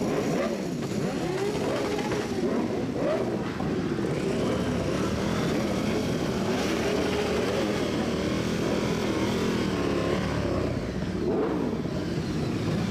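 Sport motorcycle engine running at low road speed, its pitch rising and falling again and again with the throttle.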